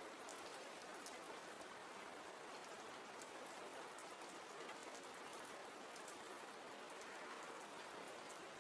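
Soft, steady rain ambience, a faint even hiss with the light ticks of individual drops.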